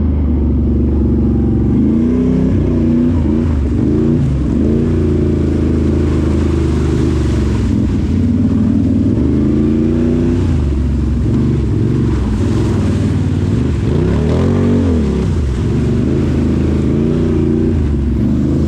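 Can-Am 1000cc off-road vehicle's V-twin engine running under varying throttle along a trail, its pitch rising and falling several times as it revs up and eases off.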